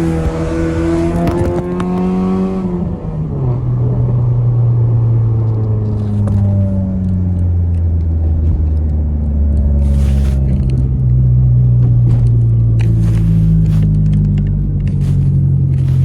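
Honda Civic EJ6's four-cylinder engine under way: it revs up, drops sharply about three seconds in as the revs fall, then runs at lower revs with the pitch wandering up and down, with some short knocks and rattles from about ten seconds in.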